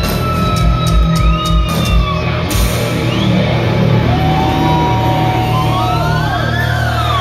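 A live thrash metal band is playing loudly with drums and distorted electric guitars. The drum hits stop about two and a half seconds in. The guitars then ring on with held and sliding notes, as a song's final chord and feedback would.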